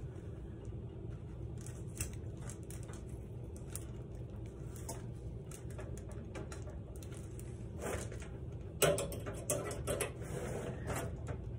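Forks scraping and clicking as they pull baked spaghetti squash flesh into strands: scattered soft scrapes, then a cluster of sharper clicks about nine seconds in, over a steady low hum.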